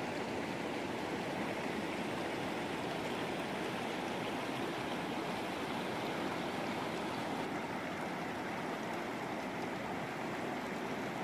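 A river running fast over rocks and stones: a steady, even rush of water.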